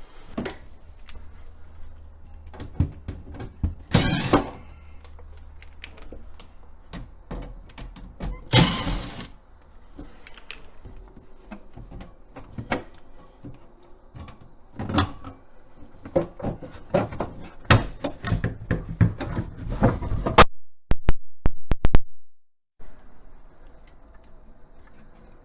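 Plastic panels and parts being handled inside a side-by-side fridge freezer: scattered knocks and clunks, a scraping slide about a second long some eight seconds in, and a dense run of clunks a few seconds before the end.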